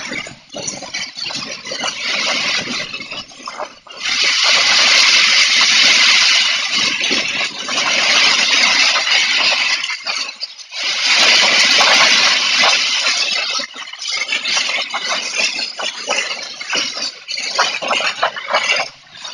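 Storm of strong wind and heavy rain, with things rattling and clattering throughout; the wind swells into two loud gusts, one about four seconds in and another about eleven seconds in.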